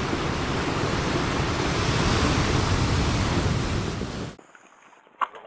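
A loud, even rushing noise like surf, which cuts off suddenly about four seconds in. A sharp click follows near the end.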